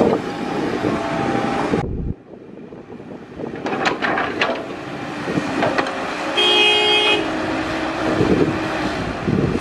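Caterpillar 312B hydraulic excavators running as they dig, with the machine noise dropping suddenly about two seconds in and a few sharp clanks about four seconds in. Past the middle a vehicle horn toots once for about half a second.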